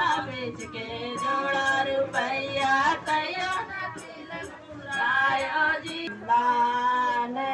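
Women singing a traditional Bihari tilak folk song, a teasing gaali geet, with long held notes over a steady beat of about three strokes a second.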